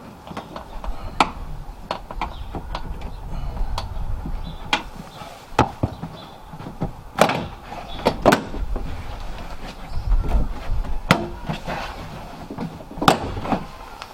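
Plastic inner lining of a car's boot lid being prised off with a screwdriver. An irregular run of sharp clicks and snaps as its push clips let go, with handling knocks and rustle in between.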